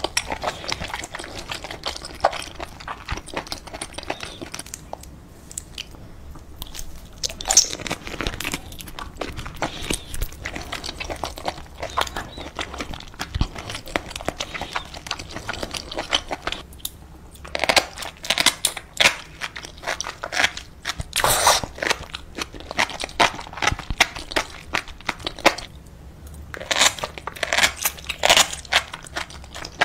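Close-miked eating of octopus in red sauce: wet, sticky chewing and biting with crackly clicks. The sounds come thicker for stretches about two-thirds of the way in and again near the end.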